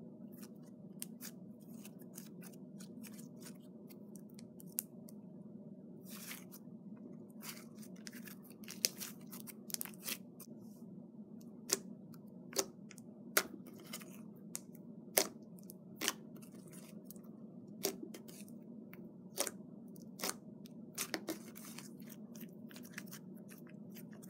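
Fluffy slime made from PVA glue, shaving foam and lotion being squished and stretched by hand, giving sharp irregular clicks and pops that come more often in the second half, over a low steady hum.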